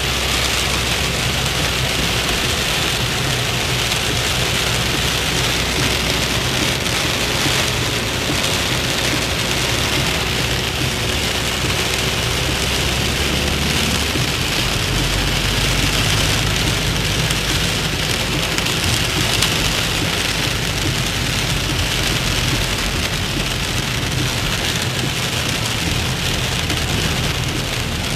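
Torrential rain falling on a moving car's roof and windshield, heard inside the cabin as a loud, steady, dense hiss. The car's engine runs low underneath.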